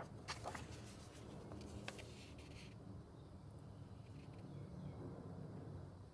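Paper pages of a paperback colouring book being turned by hand: a few quick rustles and swishes in the first three seconds, then a faint steady low hum.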